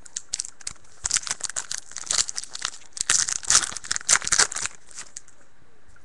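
Plastic wrapper of a trading-card pack crinkling and tearing open in a dense flurry of crackles lasting about four seconds, with a few light clicks before it.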